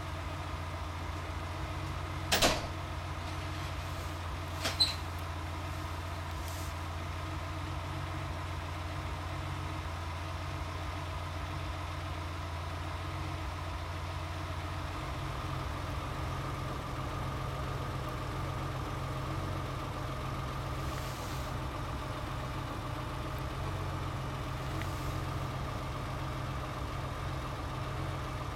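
Porsche 911 (993) air-cooled 3.6-litre flat-six with Varioram intake idling steadily, with two sharp clicks a few seconds in; about halfway through, the idle note shifts slightly.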